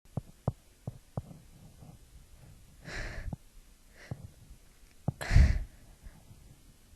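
A woman sneezing in a short fit: a few short sharp sounds as the sneeze builds, a sneeze about three seconds in, and a second, louder sneeze a little past five seconds.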